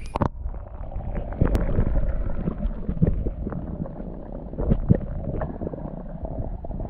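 Muffled underwater noise from a submerged camera: a dull low rumble of water moving around the microphone, with frequent small clicks and knocks.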